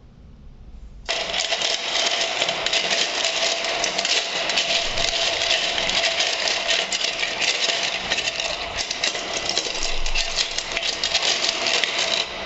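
Electric power tool running steadily with a constant motor tone, scouring rust off a metal hand tool; it starts abruptly about a second in.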